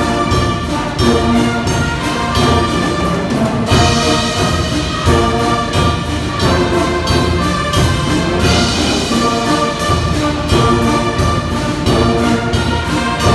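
Brass band playing a tune in held chords of horns, trombones and trumpets over a steady drum beat.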